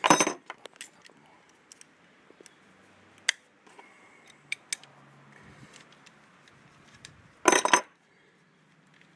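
Metal clinks and clatter of small steel parts and tools being handled while the nut, washer and old leather buckets come off a piston pump shaft: a loud clatter right at the start, scattered single clinks, and another loud clatter about seven and a half seconds in.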